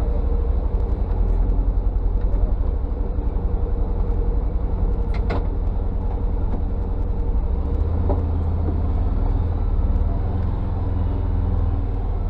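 Side-by-side UTV engine running steadily as the machine drives along, a loud, low, even engine note.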